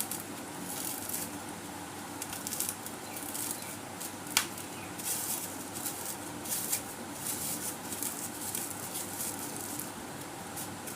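Eating by hand: rice being mixed and eaten with the fingers, with irregular soft wet clicks and rustles over a steady hiss, and one sharper click about four seconds in.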